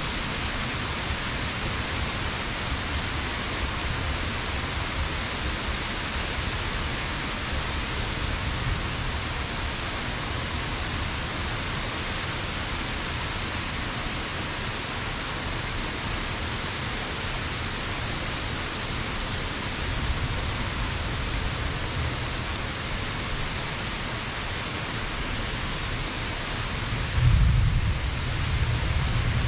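Rain falling in a steady, continuous hiss, with a low rumble underneath that swells briefly near the end.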